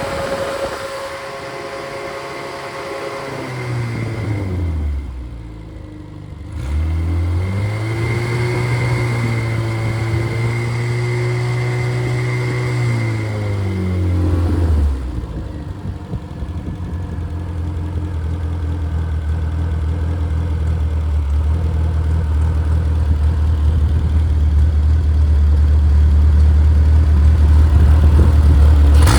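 Freshly rebuilt Triumph Spitfire / MG Midget 1500 four-cylinder engine, with a 270 cam, running and being revved. Its speed drops back a few seconds in, is brought up again and held, then falls about halfway through. It then runs at a steady speed, gradually getting louder.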